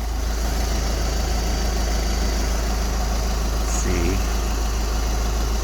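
A VW 2.0 TDI four-cylinder diesel idling steadily, with a strong low hum. The vibration noise that comes up when the clutch is let out into first is not happening at this moment.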